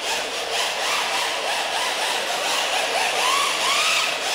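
FTX Banzai RC drift car running: its brushed electric motor whines up and down in pitch with the throttle, over a steady hiss of the tyres sliding.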